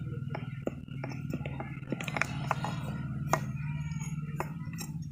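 Rusty iron pieces clinking and tapping against each other and the wooden block as they are handled: scattered light clicks with a few sharper clinks, over a steady low hum.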